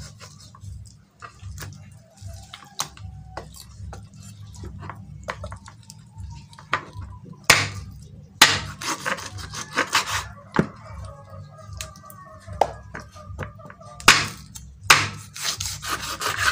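Kitchen knife chopping through raw chicken onto a wooden cutting board: a series of sharp knocks, bunched in clusters about halfway through and again near the end, over a low steady hum.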